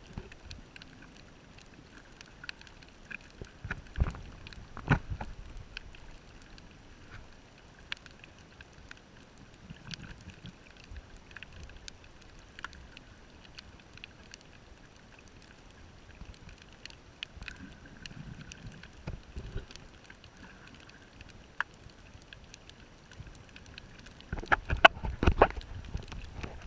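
Muffled underwater sound heard through a camera's waterproof housing: scattered sharp clicks and a few low rumbles, with a run of louder knocks and thumps near the end as something presses against the housing.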